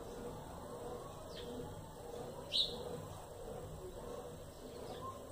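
Short, sharp bird call notes: a faint one about a second in, a louder sharp chip about halfway through, and another faint one near the end, over a steady low background murmur.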